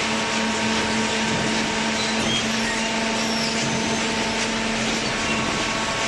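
Horizontal hydraulic cardboard baler running: a steady machine hum with a constant low drone under a dense, even hiss.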